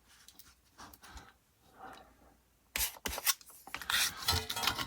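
Hands handling small hobby tools and photo-etch parts on a workbench: faint rubbing at first, then from about three seconds in a busy run of clicks and scraping.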